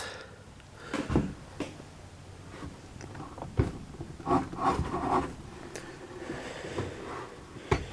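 A few scattered knocks and clicks of hands working the adjustments on a chop saw (miter saw), setting its tilt. The saw motor is not running.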